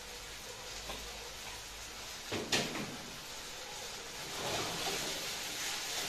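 Food sizzling in a wok over a gas burner, with a sharp knock about two and a half seconds in. From about four seconds in, a wooden spatula stirring in the wok makes the sound louder and busier.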